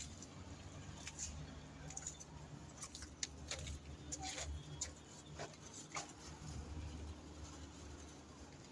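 Faint irregular taps and clicks, about eight of them, over a low steady hum.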